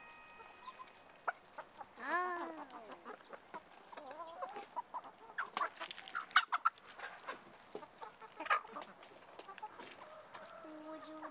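Domestic hens clucking, with one loud call that rises and falls about two seconds in, and scattered short clicks and taps.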